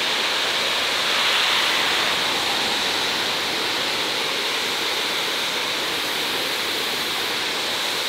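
Steady rushing of water from a man-made waterfall, a continuous even hiss that swells slightly about a second in.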